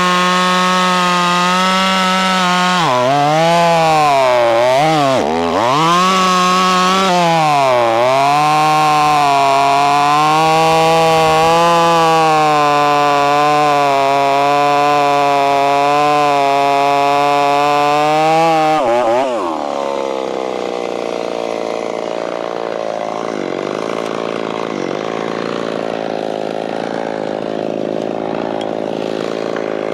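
Ported Stihl 026 two-stroke chainsaw with a 28-inch bar cutting through a large white oak trunk at full throttle. Its pitch dips sharply several times as the bar loads in the cut, then holds steady a little lower. About two-thirds of the way through, the throttle is released and the saw drops to a quieter idle.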